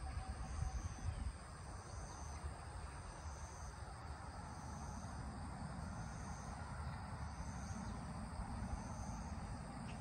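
An insect chirping: a short, high, even trill repeated about once a second, over a low steady rumble.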